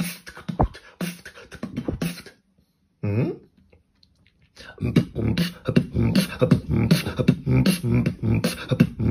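Person beatboxing a fast rhythm of mouth percussion. It breaks off a little after two seconds in, with one short sound in the pause, and starts again about four and a half seconds in, denser than before.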